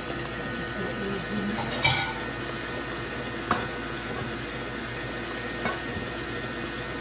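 12-speed electric stand mixer running steadily, beating eggs into cake batter, with a few clinks, the loudest about two seconds in.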